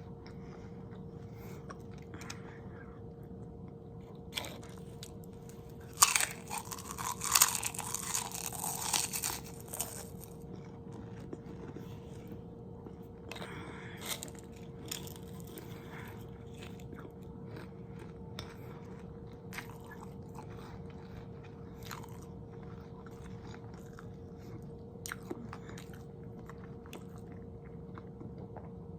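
Close-miked eating: a loud burst of crunchy biting and chewing for a few seconds, followed by quieter chewing with small wet mouth clicks.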